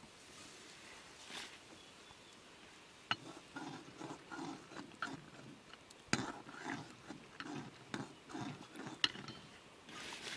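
A ladle stirring in a blackened metal cooking pot over a wood fire. It makes a rhythmic scraping, two or three strokes a second, with sharp clinks of metal on metal about three, six and nine seconds in.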